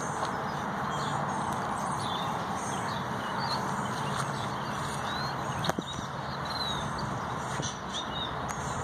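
Small birds chirping in short, scattered calls over a steady background rush, with one sharp click a little past halfway.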